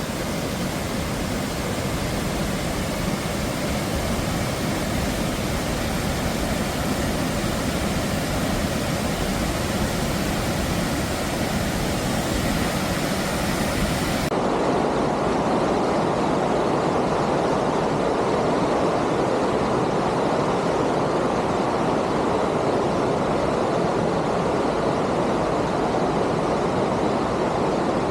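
Steady rush of water pouring over a waterfall. About halfway through the sound changes abruptly to a deeper, duller rush.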